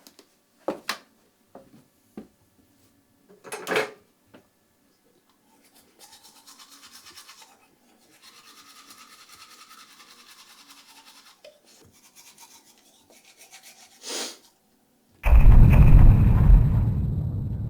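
A few knocks and clicks, then two spells of fast, even scrubbing. About fifteen seconds in, a loud rushing sound starts suddenly and slowly dies away.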